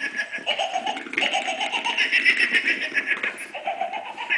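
A battery-powered light-up toy ball giving off an electronic chattering, giggle-like sound in repeated short phrases with a fast flutter, breaking off briefly about a second in and again near three and a half seconds.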